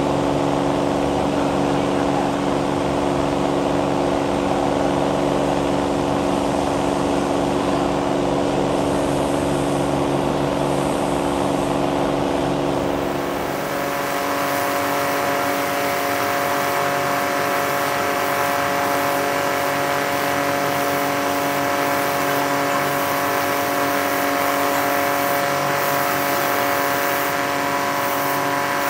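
Belt sander running with a steady motor hum. About halfway through, the hum shifts in pitch and a brighter hiss comes in as the knife's stag antler handle is pressed against the moving abrasive belt.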